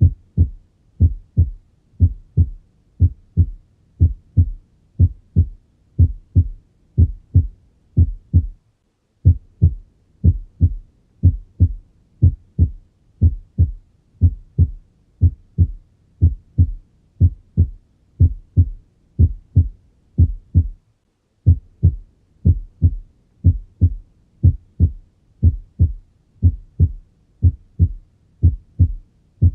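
Normal human heart sounds as heard on auscultation: a steady, regular heartbeat of short low thuds, presenting a normal first heart sound (S1). The recording cuts out briefly twice, about 9 and 21 seconds in.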